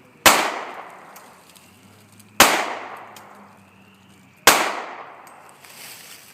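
Three shots from a .40-calibre Glock 22 pistol, about two seconds apart, each ringing out and fading over about a second.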